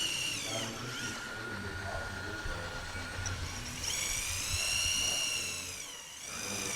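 Small electric motor of a radio-controlled model machine whining at a high pitch. It winds down about half a second in, spins back up around four seconds, and winds down again near the end.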